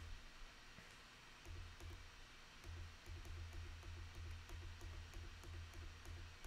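Near silence: a faint low hum that comes and goes, with light scattered ticks and clicks.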